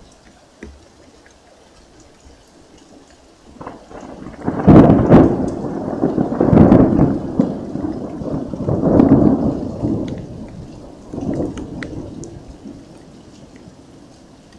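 Thunder: a long rolling rumble that builds about three and a half seconds in, surges loudly several times, and dies away over the last few seconds.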